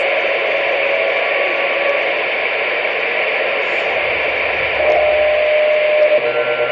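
CB radio static: a steady, loud hiss from an open channel, with faint steady tones under it.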